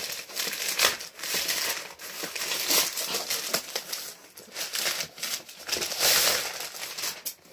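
Plastic mailer bag crinkling and rustling in irregular bursts as it is handled and a box is pulled out of it.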